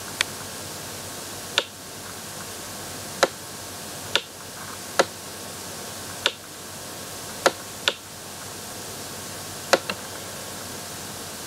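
Computer mouse clicking about ten times at irregular intervals, some clicks in quick pairs, over a steady microphone hiss.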